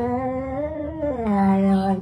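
A voice humming long held notes: one steady note, then a glide down to a lower note about a second in, held to the end.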